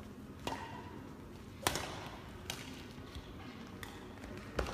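Badminton rackets striking a shuttlecock during a doubles rally: about five sharp cracks roughly a second apart, the loudest about a second and a half in.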